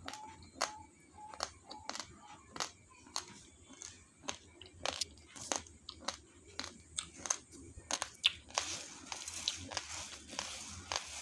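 Raw basmati rice grains being crunched between the teeth, sharp crunches about twice a second. From about eight and a half seconds in, a dry rustling hiss of fingers stirring the uncooked grains joins them.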